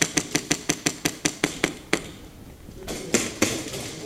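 Airsoft gunfire: a rapid, even string of sharp shots, about seven a second, that stops about two seconds in, followed by a couple of short noisy rushes.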